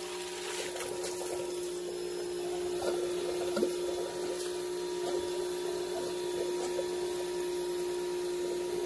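Water spurting and gurgling out of a pool's skimmer line into the open pool-pump strainer housing as the line is blown out to empty it for winterizing, over a steady motor hum.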